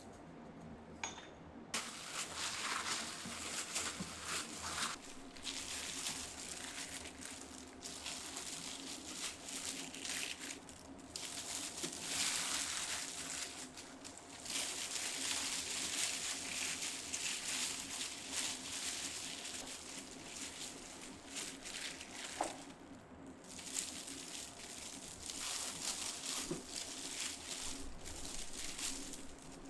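Continuous crunching and rustling handling noise with occasional light clinks, pausing briefly a few times, over a faint steady hum.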